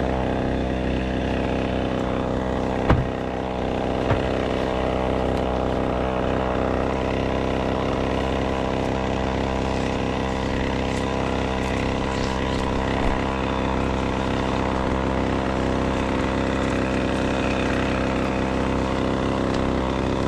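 An engine running steadily at one constant speed, with a couple of brief knocks about three and four seconds in.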